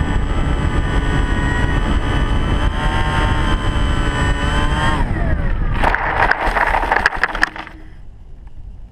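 Model airplane's motor and propeller running steadily, then winding down with a falling pitch about five seconds in. It touches down and skids through dry grass with a burst of scraping and crackling, after which only faint wind noise is left.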